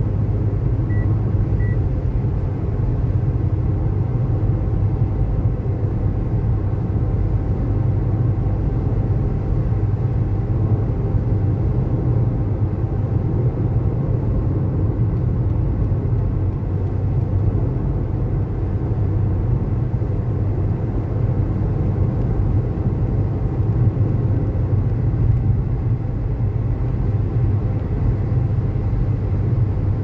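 Steady low rumble of a car driving: engine and road noise holding even, with no revving or braking.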